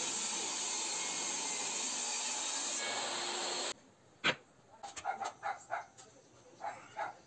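A power tool working wood runs with a steady, even noise, then cuts off abruptly a little past halfway. A sharp knock follows, then a dog barks about six times in short bursts.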